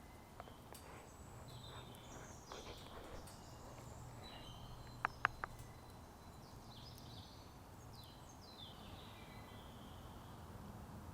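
Woodland birds singing and calling, with short chirps and falling whistles scattered through. A few sharp clicks about five seconds in stand out above the birdsong.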